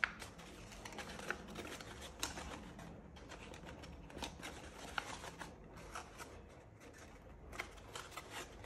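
Folded A4 paper crackling and rustling in the hands as a pleated herringbone paper form is squeezed and concertinaed, with many irregular small crisp clicks.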